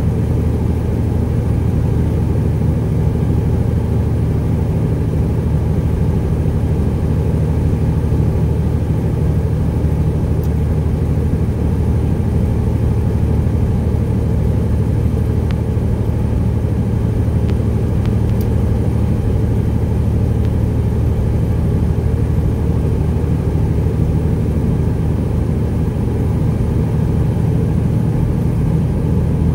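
Detroit Diesel Series 60 engine of a 1999 Peterbilt 379 with straight pipes, running steadily and working hard under load up a long grade, heard from inside the cab.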